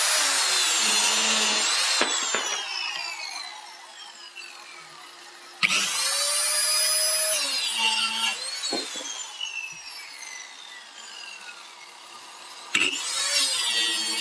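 Mafell KSS 300 portable circular saw cutting through a pine board along its guide track, three times. Each cut runs at full speed for two or three seconds, then the motor is switched off and the blade whines down with falling pitch. The first cut is already under way, the second starts just over five seconds in, and the third starts near the end.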